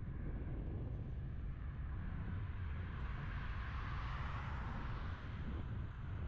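Wind buffeting the microphone while cycling, a steady low rumble, with the noise of passing road traffic swelling to a peak about four seconds in and then fading.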